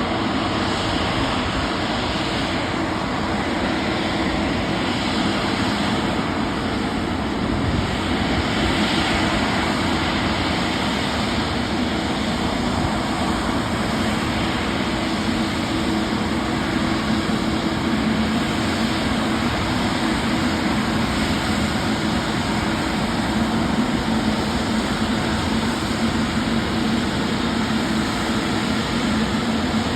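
Jet airliner engines running: a constant rush of noise with a steady low hum.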